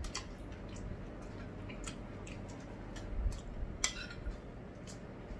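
Cooked shrimp being peeled by hand: soft scattered clicks and crackles of shell, with the odd light clink of a spoon on a plate.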